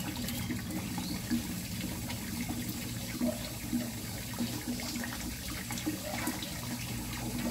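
Thin stream of water from a pipe pouring steadily into a koi pond, splashing at the surface.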